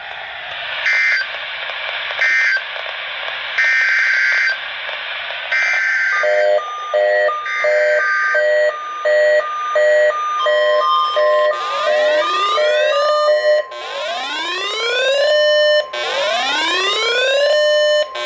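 Emergency alert tones between two broadcast weather warnings: a few short screeching data bursts over radio hiss, then a run of pulsing electronic beeps about two a second. About halfway through a steady alert tone comes in, joined by rising whoops repeating about once a second.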